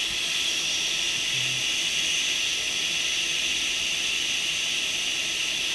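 Hot air rework station nozzle blowing a steady hiss of hot air onto a circuit board, reflowing solder to set a small capacitor back in place under heavy flux.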